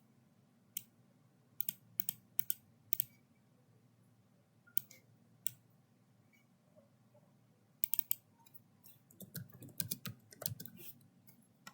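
Sharp single clicks about half a second to a second apart, then a quicker flurry of clicks near the end, from a computer mouse and keyboard being worked.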